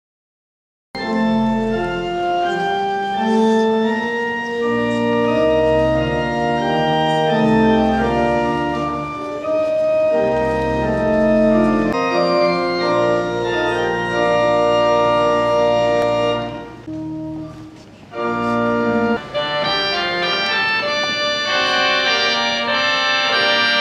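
Organ playing slow held chords over deep bass notes, starting about a second in. The music drops away briefly about seventeen seconds in, then resumes.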